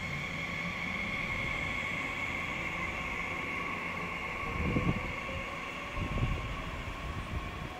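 Double-deck electric regional train pulling out of the station and running away, with a steady high electric whine over a low rumble and two brief low thuds partway through.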